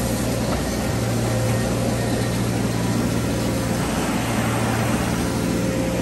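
Volumetric concrete truck running its mixing auger, discharging concrete into a concrete pump's hopper. The machinery makes a steady, even diesel drone with a low hum and does not change.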